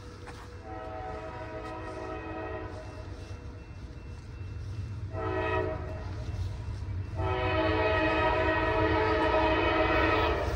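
Approaching locomotive's air horn sounding a chord: a long blast, a short one, then a long, louder blast. The pattern is the standard long-long-short-long grade-crossing signal, with the first long blast just before.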